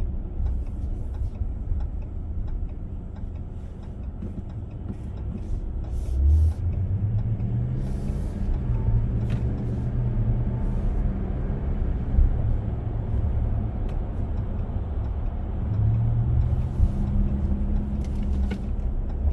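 Cabin noise of a 2025 Ram 1500 Limited under way: a low, steady rumble of road and engine from its high-output Hurricane 3.0 L twin-turbo inline-six. The engine hum swells and rises in pitch about six seconds in and again near the end. There is a short knock about six seconds in and a click around twelve seconds.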